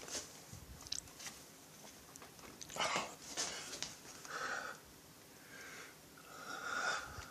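A few short breaths through the nose close to the microphone, with faint handling clicks.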